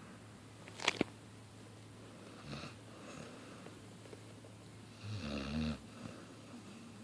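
Snoring: one loud, pulsing snore about five seconds in, with a fainter breath about two and a half seconds in. Two sharp clicks come about a second in, over a steady low hum.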